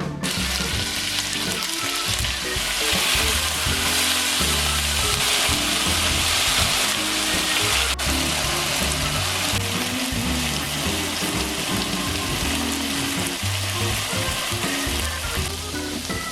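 Food sizzling in a hot frying pan, a steady hiss that starts suddenly, with background music underneath.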